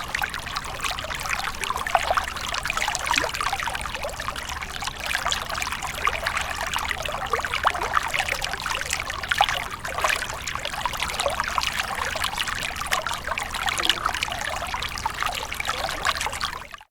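Water trickling and babbling in a small stream, steady throughout, then cutting off abruptly at the very end.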